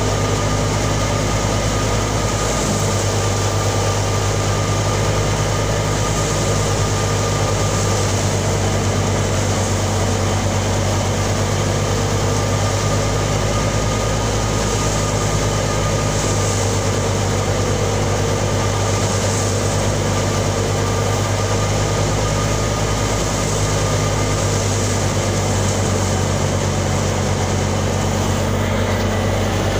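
Tractor-driven wheat thresher running steadily: a constant low engine hum under the machine's broad rattling rush, with a thin steady whine above it.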